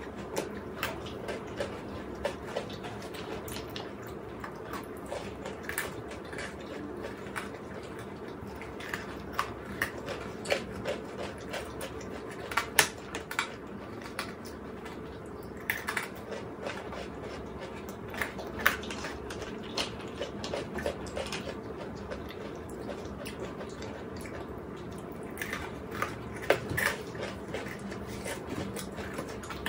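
Eating sounds of chocolates being chewed close to the microphone: irregular crunching and chewing with scattered sharp clicks, over a steady background hum.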